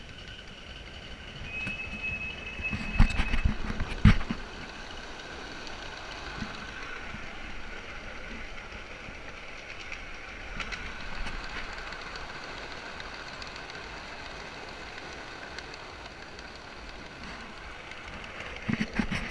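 5-inch gauge coal-fired Simplex miniature steam locomotive and its riding cars running along the track: a steady rolling sound, with a brief high steady tone about two seconds in and two loud knocks around three and four seconds.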